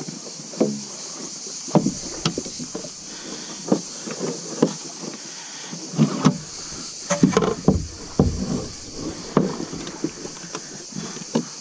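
Irregular knocks, clicks and scrapes of hands handling fittings and covers on a plastic fishing kayak's deck, with a few heavier hollow thumps around the middle.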